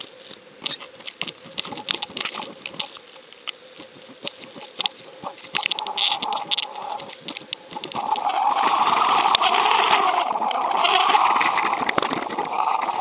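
Sound picked up by an underwater fishing camera on a deep-drop rig: scattered sharp clicks and knocks over a faint steady hum, then about eight seconds in a louder steady rushing noise takes over.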